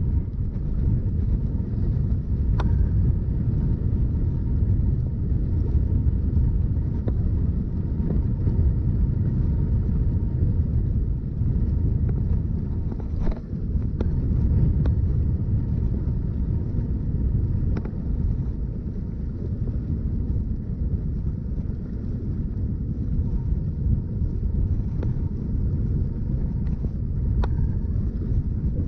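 Steady low rumble aboard a small fishing boat on the water, with a few faint sharp clicks scattered through it.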